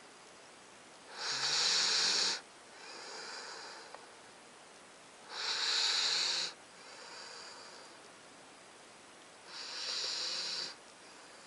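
Nine-week-old Alaskan Malamute puppy snoring in its sleep. There are three loud, hissy snoring breaths about four seconds apart, each lasting about a second, with softer breaths in between.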